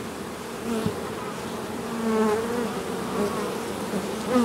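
Buzzing of many honeybees flying around. Individual bees pass close by, and their hum bends up and down in pitch.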